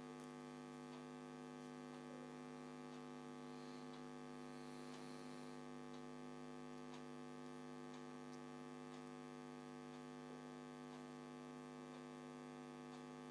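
Faint steady electrical mains hum, with a few faint scattered ticks.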